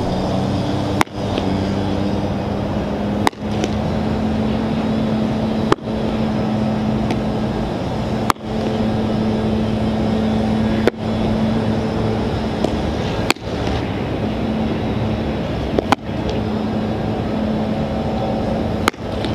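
A steady low hum, like a running engine or machine, broken by a short sharp click about every two and a half seconds.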